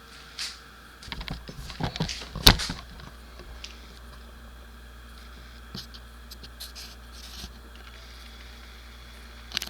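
Handling noise in a small room: a flurry of knocks, clicks and scrapes with one sharp knock about two and a half seconds in, then a few faint ticks and a last sharp click near the end, over a low steady hum.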